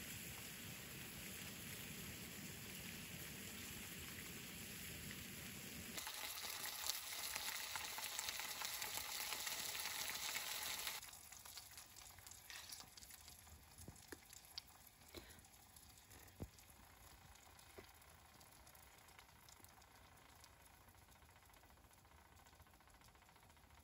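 Food sizzling in a frying pan over a wood fire, loudest for about five seconds in the middle, then giving way to a quieter stretch of small crackles and clicks from the fire and the metal cookware.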